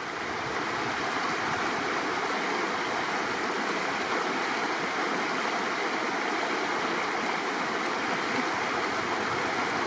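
Clearwater River braid running over its gravel bed: a steady rush of flowing water.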